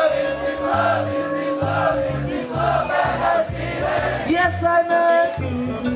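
Live reggae band playing, with a bass line moving under sustained sung or keyboard notes, and crowd noise in the mix.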